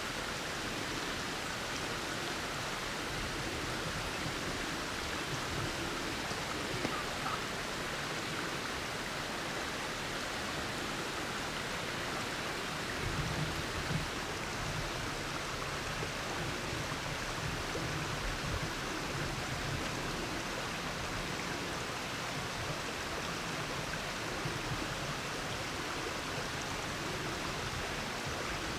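A steady, even hiss of outdoor background noise, with a brief low rumble about halfway through and no distinct calls.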